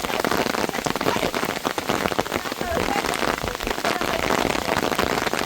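Heavy rain falling steadily, with a dense run of close, sharp drop impacts striking a surface.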